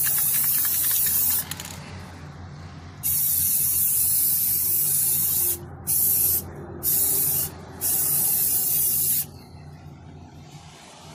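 Aerosol spray paint can spraying in repeated bursts of hiss, five in all, the later ones short, stopping about nine seconds in. The paint is going onto the stove top's burner tracks as a first coat.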